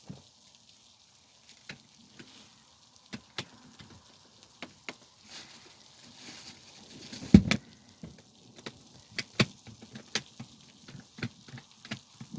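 Wood fire crackling, with scattered sharp pops and clicks over a faint hiss, and one dull thud about seven seconds in.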